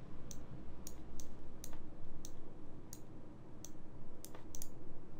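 Computer mouse button clicking, about eight sharp clicks at a fairly even pace of roughly one every two-thirds of a second, with a quick double click near the end.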